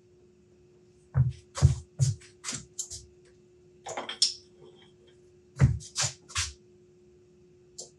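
Short metal knocks and scrapes from hands working at a metal lathe's chuck and tool post. They come in three quick groups, the first of about five knocks, then one or two, then three, over a faint steady hum.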